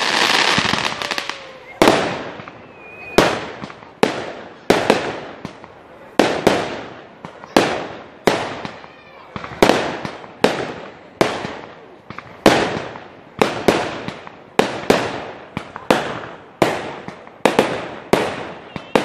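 Aerial fireworks going off in a steady volley: a longer crackling burst at the start, then sharp bangs at a regular pace of about three every two seconds, each trailing off in echo and crackle.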